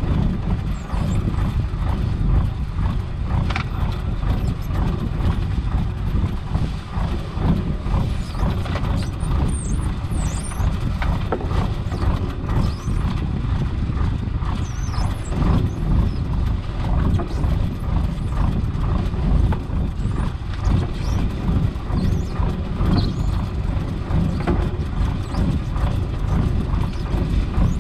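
Fishing boat's engine running steadily, with irregular knocking and rattling as a mesh gillnet is hauled aboard by hand.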